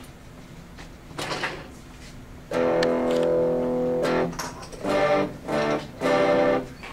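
Stratocaster-style electric guitar strummed and heard through the small speaker built into an ammo-box tuner unit. A light strum about a second in, then a loud chord held for over a second and a half, then three short chords near the end.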